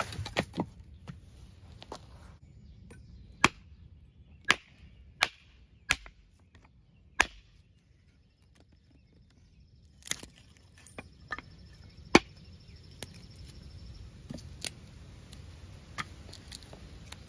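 Cold Steel Frontier Hawk tomahawk chopping and splitting small pieces of wood on a chopping block: about a dozen sharp, irregular chops. There is a pause of about two seconds near the middle, and the hardest blow comes about two-thirds of the way through.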